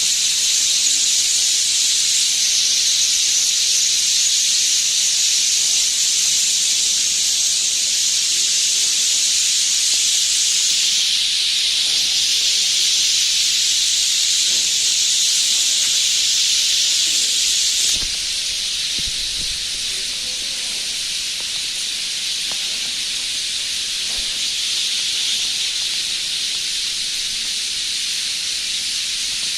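A dense chorus of a large flock of birds chirping together at their roost, the calls merging into a continuous high-pitched wash. About two thirds of the way through it drops abruptly to a slightly lower level and carries on.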